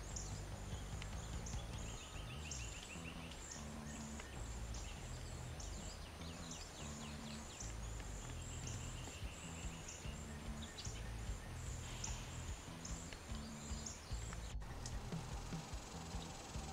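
Outdoor natural ambience: quick, high chirps repeat over and over, with a short pulsed trill about three seconds in and again about eight seconds in. Near the end the sound cuts to a soft trickle of water.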